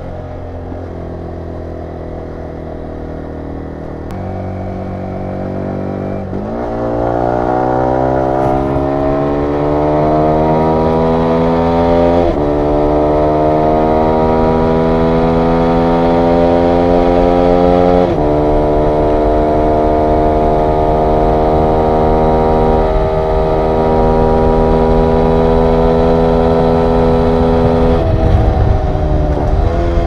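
2022 Yamaha YZF-R125's single-cylinder 125 cc four-stroke engine running through a full Akrapovic exhaust system while riding. The revs rise sharply about six seconds in and climb, drop back with two upshifts, then hold steady before dipping and picking up again near the end.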